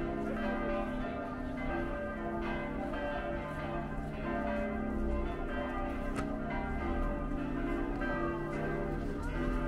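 Church bells of Oslo Cathedral's tower ringing: several bells struck in turn, their tones ringing on and overlapping.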